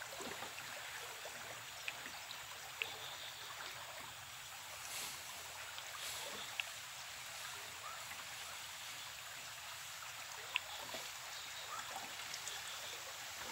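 River water flowing and lapping, a steady wash, with a few sharp clicks.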